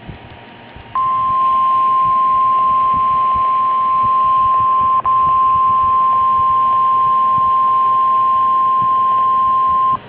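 NOAA Weather Radio's 1050 Hz alert tone coming through a Midland weather alert radio's speaker over radio hiss: one steady, loud tone that starts about a second in and holds for about nine seconds, with a brief break near the middle. The tone signals an incoming weather alert broadcast, here a severe thunderstorm watch.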